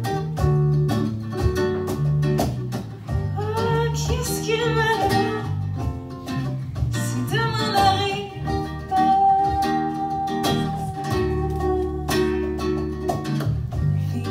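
Live band playing an instrumental passage: acoustic guitar and bass guitar over a steady percussion beat. Above them a melody line glides through several notes and holds one long note about two-thirds of the way in.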